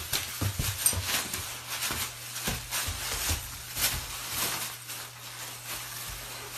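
Plastic bag crinkling and rustling in irregular crackles as a boxer puppy grabs, shakes and drags it across the floor.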